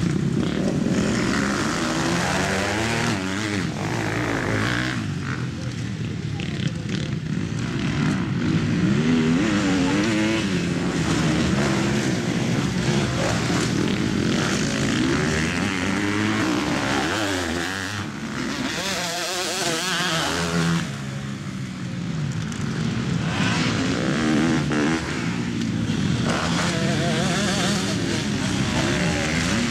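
Motocross bikes' engines revving up and falling back over and over as they ride the dirt track, more than one bike at a time.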